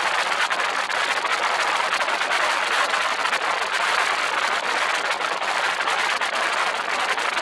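Steady rushing wind noise buffeting the microphone of an open craft moving fast over water.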